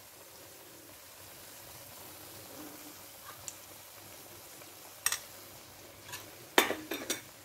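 Cream being poured into a hot kadhai of fried spiced peas, with a faint steady sizzle from the pan. Near the end a metal spoon clinks sharply a few times.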